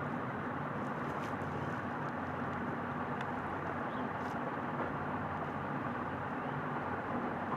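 Steady background noise with a few faint, light clicks, about a second in and again near the middle, as the fan motor's bush is pressed into its seat by hand.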